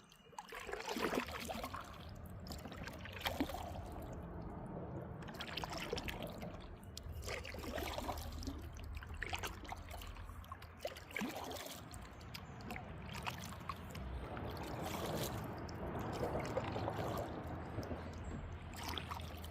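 Kayak paddle dipping into creek water, with trickling drips and many small splashes.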